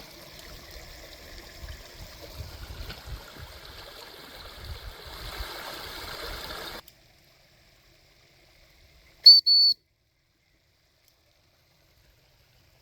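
Running stream water for about the first seven seconds, ending abruptly. Then, after a quiet stretch, two short, high-pitched whistle blasts in quick succession, the second a little longer, much louder than the stream.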